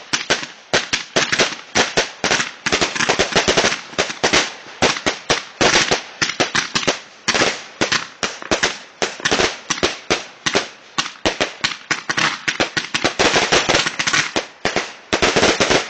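A fireworks battery firing a fast, continuous string of bangs, several a second, as its shots launch and burst overhead; the string stops near the end.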